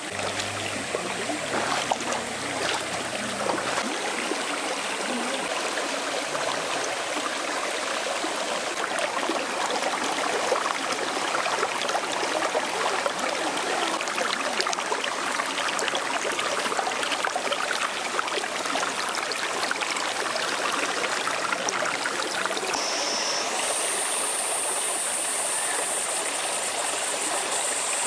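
Mountain valley stream flowing and babbling over rocks, a steady rush of water with fine splashes. Near the end a steady high-pitched whine joins it.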